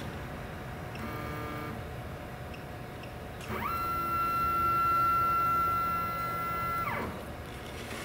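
CNC Shark router's stepper motors jogging the machine's head. A short whine comes about a second in, then a longer, steady whine from about three and a half seconds that rises in pitch as the motors speed up and falls as they slow to a stop near seven seconds.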